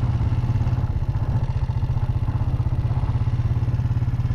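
An engine running steadily at idle, a fast, even low throb.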